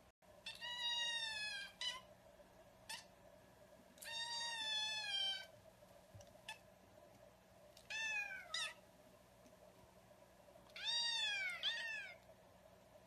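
A kitten meowing repeatedly: four long, high meows a few seconds apart, each rising slightly and then falling in pitch, the last one doubled.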